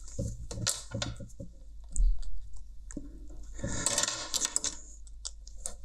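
Hands working a headphone's plastic hinge and cable free: small plastic clicks and taps, a dull thump about two seconds in, and a short clattering, scratchy rattle around four seconds in.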